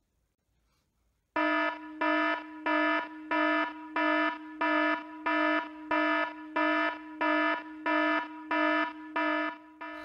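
Phone ringtone: a harsh, buzzer-like electronic beep at one steady pitch, starting about a second in and repeating evenly about one and a half times a second.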